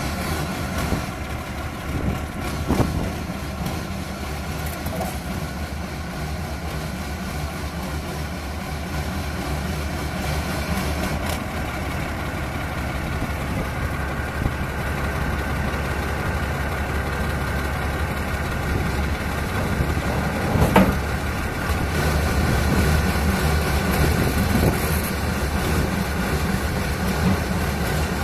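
Diesel engine of a PTS tracked amphibious transporter running steadily at low speed as the vehicle creeps along the trailer, with two sharp knocks, about 3 seconds in and about 21 seconds in.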